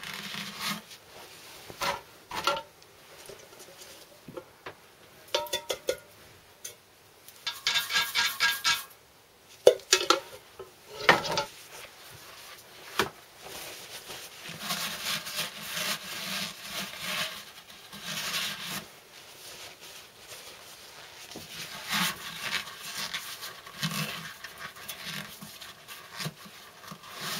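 Hands working at an old engine's valve seats with a rag: scattered light metal clinks and knocks, a quick rattling run of clicks about eight seconds in, and later stretches of rubbing and wiping.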